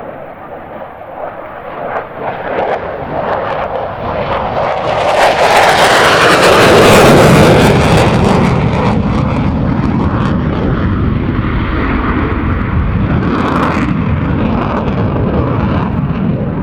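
Fighter jet in afterburner passing overhead, growing louder to its loudest about seven seconds in, with a crackling edge, then holding at a steady, slightly lower level.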